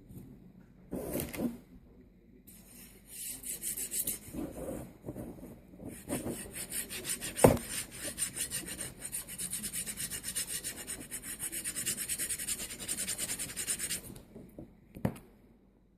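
LM8UU linear ball bearing run back and forth along its 8 mm steel rod, giving a gritty rasp with a fast, even rattle in several stretches, and a sharp click about halfway through and another near the end.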